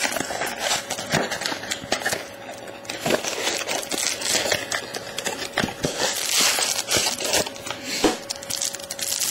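Foil trading-card pack wrapper crinkling while cards are handled, an irregular run of rustles and crackles.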